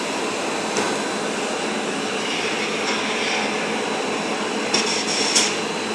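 Hurricane simulator booth's high-powered blower running, a steady rush of wind noise, with a few faint clicks near the end.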